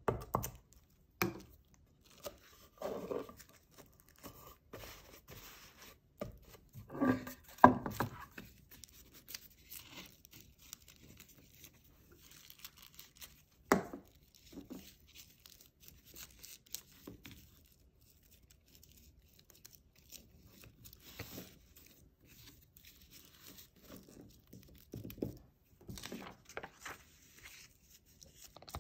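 Hands working masking tape and paper on a wooden tray: tearing and crinkling of tape, rubbing, and scattered small knocks on the table, the loudest cluster about seven seconds in and a sharp knock near fourteen seconds.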